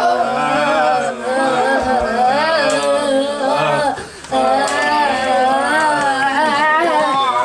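A song with sung vocals: held, wavering sung notes over a steady backing, with a short break about four seconds in.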